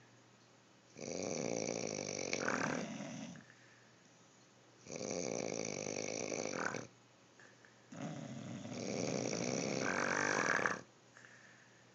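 Snoring: three long snores in a slow, even rhythm, each lasting two to three seconds with short quiet gaps between breaths.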